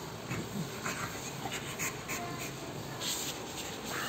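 American bully panting hard, worn out from play: quick open-mouthed breaths coming in uneven strokes.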